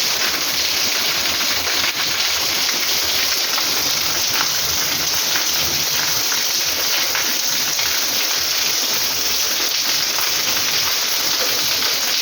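Rain falling steadily: a dense, even hiss with faint scattered drop ticks.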